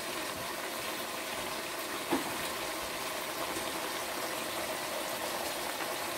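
A pot of vegetables for yellow rice simmering on the stove with a steady hiss, and one short knock about two seconds in.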